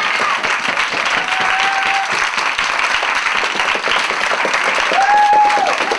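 A crowd of dance students applauding, dense steady clapping. A long held shout from the crowd rises above it about five seconds in.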